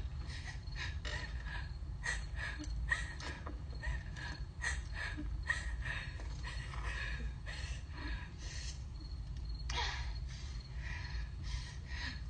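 Rapid, frightened breathing and gasps, a short breath every third to half a second, over a steady low rumble.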